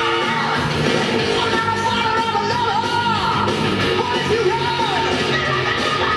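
Rock music from a film soundtrack playing back from a VHS tape: a rock band with a singer yelling and sliding through long sung notes.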